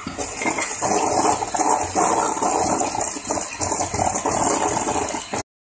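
Electric hand mixer running steadily, its twin beaters whipping egg and sugar in a stainless steel bowl. The sound cuts off abruptly near the end.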